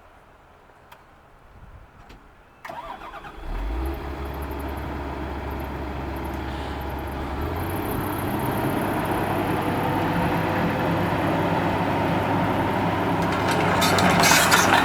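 2007 Komatsu PC228USLC-3 excavator's diesel engine cranking and catching about three seconds in, then running and growing gradually louder as the revs come up. A hiss joins near the end.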